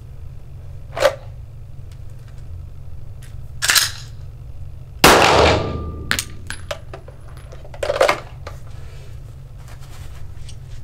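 A single Glock 9 mm pistol shot about five seconds in, its report echoing briefly in an indoor range. Softer clicks and rustles of drawing and handling come before and after it.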